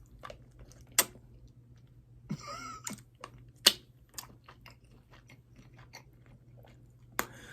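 Close-miked eating sounds of chewing hot wings: scattered sharp wet mouth clicks and smacks, with a brief pitched vocal sound about two seconds in and a breathy rush of air near the end.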